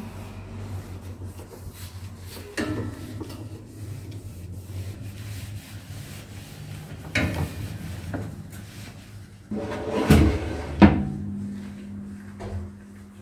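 Handling sounds: a series of knocks and clunks with rubbing between them, like wood being moved or a cupboard or drawer being worked. Just after the loudest knock, near the end, a steady low hum starts.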